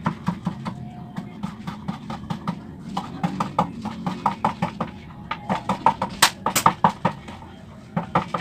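Kitchen knife chopping spring onion on a wooden chopping board: a quick run of knocks, several a second, loudest about six to seven seconds in.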